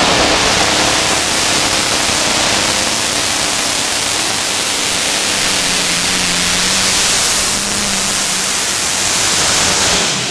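Modified pulling tractor's Allison aircraft engines running at full throttle, a loud steady roar, as it drags the brake sled the full length of the track.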